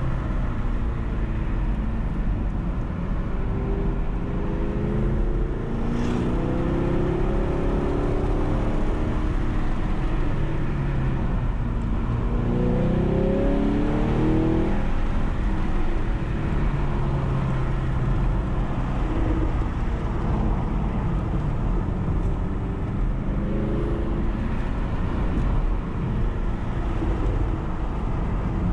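Car engine under hard driving, its pitch climbing under acceleration and dropping again several times as it shifts and slows for bends, over steady road and wind rumble.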